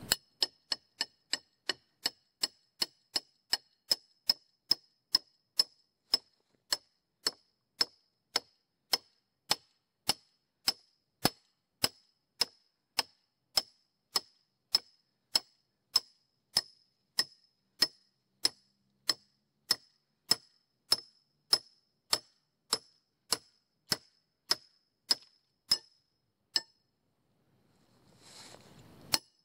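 Hammer striking the steel shank of a T-handled wood-boring bit at a steady rate of about two blows a second, each blow a short metallic clang with a high ring. The blows stop a couple of seconds before the end.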